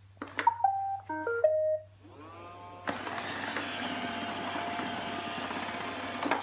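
iRobot Roomba started with a click and its short start-up melody of beeps, then its vacuum and brush motors spin up and run steadily for about three seconds before cutting off suddenly near the end. The robot shuts itself off as its front end lifts in a wheelie under the towed load.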